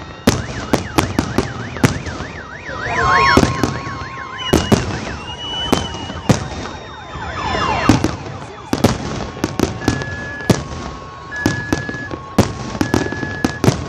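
Fireworks display going off in a rapid, irregular string of sharp bangs and crackles, with a car alarm sounding: a fast warbling wail in the first few seconds, then a two-tone alternating alarm from about ten seconds in.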